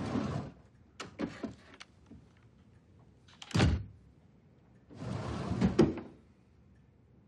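A wooden desk drawer slides open, light metallic clicks follow as a revolver is handled, and the revolver is set down on the desk with a heavy thunk about three and a half seconds in. About five seconds in the drawer slides shut, ending in a click.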